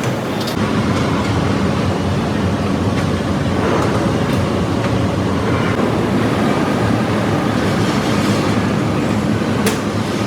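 Heavy machinery in a steel rebar mill running with a steady, loud, low rumble, with a few sharp metallic knocks, the loudest near the end.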